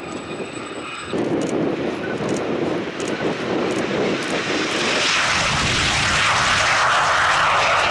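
A Gazelle helicopter's turbine whine for about the first second, then a BAC Strikemaster jet flying a low pass. Its Rolls-Royce Viper turbojet builds to a loud rushing roar from about five seconds in.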